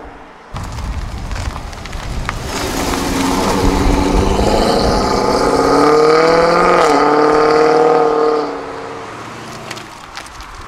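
American muscle car engine accelerating hard, its pitch climbing, with a brief drop about seven seconds in like a gear change. It then stays loud for a moment and fades away.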